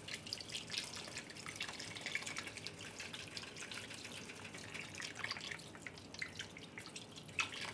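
Beef broth pouring from a carton into a cast iron Dutch oven of short ribs: a steady trickling and dripping with a dense patter of small crackles.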